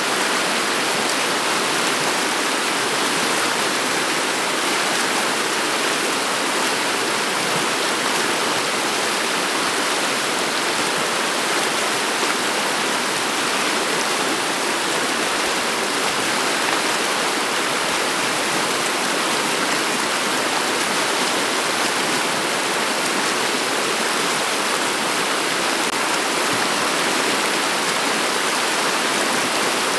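Shallow river water flowing steadily over a stony bed.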